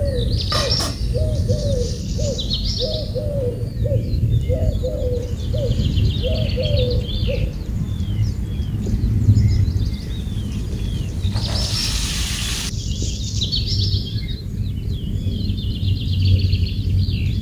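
Birds chirping, with a run of low repeated calls in the first half, over a steady low rumble. About eleven seconds in comes a brief loud hiss lasting just over a second.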